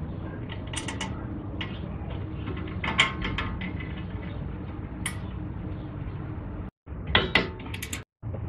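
Metal clinks and clicks of a brake caliper being fitted onto its bracket over new pads and rotor, with its bolts worked in, over a steady low background noise. A quick run of sharper clicks near the end as the caliper bolts are tightened with a torque wrench.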